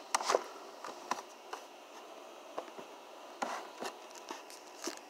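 Irregular small clicks and soft rustling of handling noise, with the sharpest clicks just after the start and a brief rustle past the middle.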